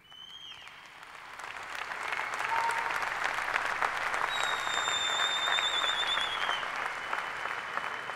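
Large audience applauding, swelling over the first two seconds and then slowly tapering. A long high-pitched whistle sounds over the clapping from about four seconds in.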